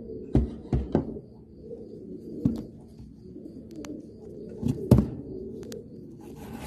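Domestic pigeon cooing low and continuously, with several sharp knocks scattered through it, the loudest about five seconds in.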